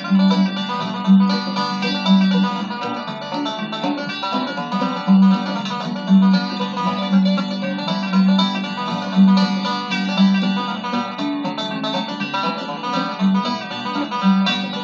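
Old-time string band playing an instrumental introduction, with banjo and guitar picking.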